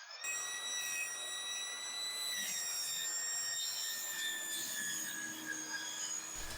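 Table saw running, its blade giving a steady high whine whose pitch sags slightly over the few seconds.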